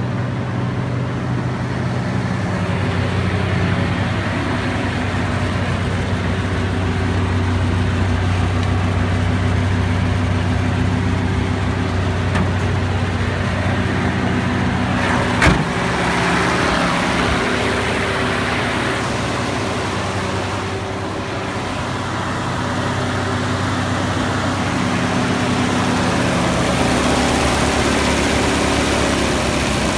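A military 2½-ton truck's carbureted, governed engine runs steadily at idle, with one sharp knock about halfway through. Near the end the engine's note shifts as the carburetor throttle linkage is worked by hand. The linkage is sloppy and its return spring is weak, so a slight touch puts the engine into fast idle.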